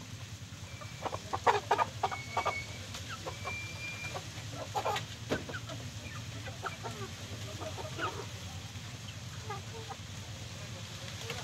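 Chickens sick with coryza (snot) clucking and squawking in short separate calls, a busy flurry in the first half, then sparser calls.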